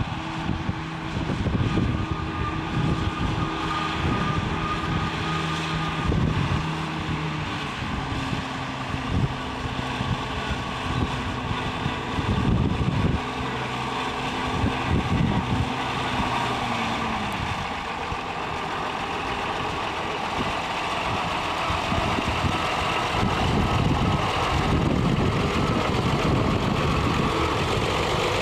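1953 Oliver 88 diesel tractor's six-cylinder engine running steadily, its note shifting a few times and dropping about halfway through as the engine speed changes.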